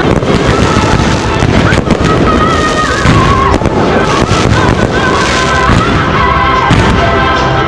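Aerial fireworks going off: repeated sharp bangs and crackles, mixed with loud music carrying a melody.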